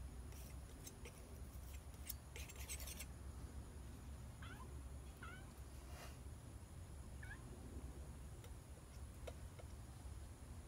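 A palette knife scrapes oil paint across a painting panel in a few short scratchy strokes. Then a cat gives a few short chirping meows.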